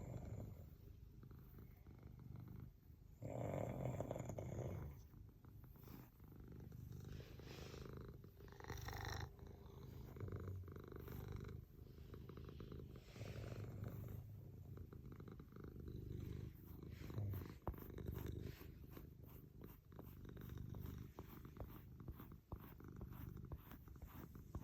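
A domestic cat purring steadily while it is brushed, with short scratchy brush strokes in the second half. A sleeping person's snoring swells up now and then, loudest about four seconds in.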